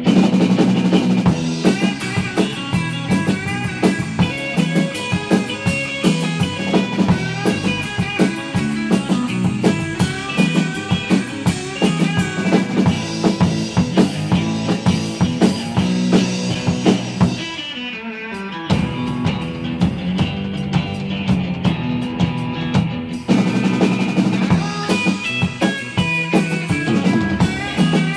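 Live surf rock band playing an instrumental number, with drum kit, electric guitar and bass guitar. Near two-thirds through the music thins briefly with a falling glide, then the full band comes back in.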